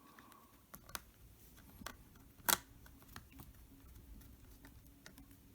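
Scattered light clicks and taps of laptop parts being handled and fitted by hand, about seven in all, with one louder click about two and a half seconds in.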